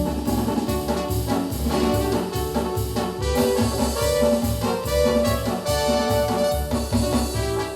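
Yamaha DX7 FM synthesizer playing a multi-voice passage with a brass-like voice over a pulsing bass line.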